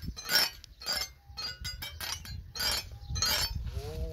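Steel combination spanners clinking against one another as they are slid out of a cloth wrench roll: a sharp metallic clink with a brief high ring about every half second.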